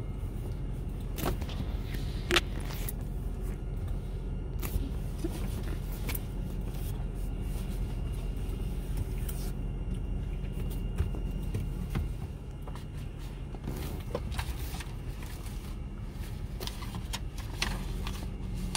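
Honda minivan idling, heard from inside the cabin as a steady low hum. A few short clicks and knocks from the phone being handled, the sharpest about two seconds in.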